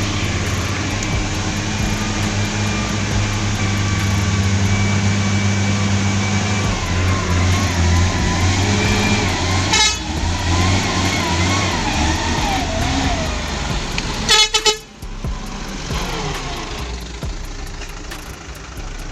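Truck engine running steadily, with short horn toots about ten seconds in and again near fourteen seconds, the second the loudest; the engine sound then drops away.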